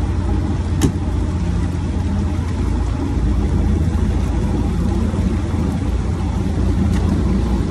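Fishing boat's engine running steadily at low speed, a constant low drone under an even hiss of rain and water, with one sharp click about a second in.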